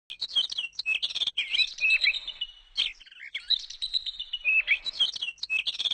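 Small birds chirping and twittering, a dense run of quick up-and-down call notes with a short lull about three seconds in.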